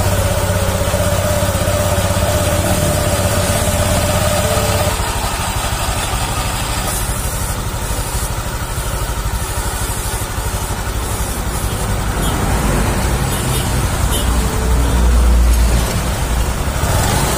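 Honda Vario 150 scooter's single-cylinder engine and CVT running steadily, a little louder near the end. The freshly reassembled CVT runs smooth, without the earlier rough grinding.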